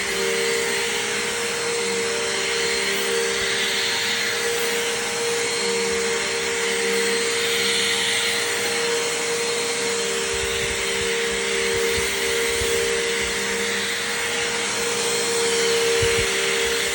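Bissell Powerforce Compact upright vacuum running steadily with a high motor whine and airflow hiss, with a few low bumps as it is pushed back and forth over the floor.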